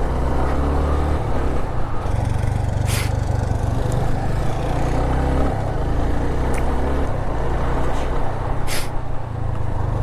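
Motorcycle engine running steadily while riding, its note shifting a little with the throttle, with short hisses about three seconds in and again near the end.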